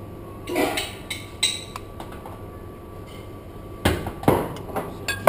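Kitchen clatter: dishes and utensils clinking and knocking, with two louder knocks about four seconds in.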